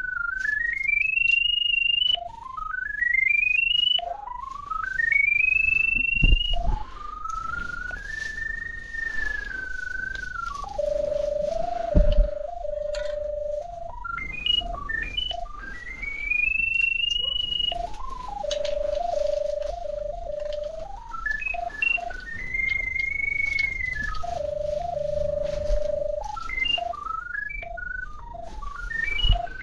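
Drain camera locator receiver sounding a single electronic tone that glides up in pitch again and again, rising as it picks up the camera head's sonde under the ground and dropping back to a steady low, broken tone between sweeps. Two sharp knocks about 6 and 12 seconds in.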